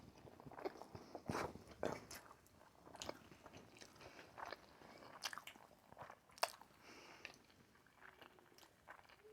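Faint, close-miked chewing and wet mouth sounds of people eating sushi, with scattered soft clicks and smacks.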